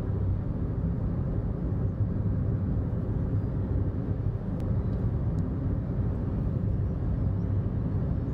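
Steady low rumble of a car in motion: road and engine noise heard from inside the car.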